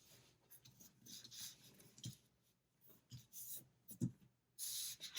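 Quiet paper handling on a desk: light rustling and rubbing of sticker sheets and planner pages, with a couple of soft taps, and a longer scratchy rub near the end.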